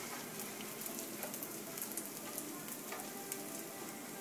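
Raw rice sizzling in hot oil in a frying pan as it is toasted golden for red rice, a steady crackle of many small pops, while it is stirred.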